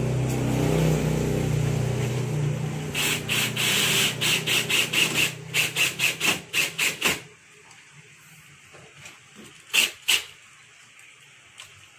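Cordless drill driving a screw into the aluminium frame of a sliding cabinet door. It runs steadily for about three seconds, then in short bursts about three a second until it stops about seven seconds in. Two sharp clicks follow near the end.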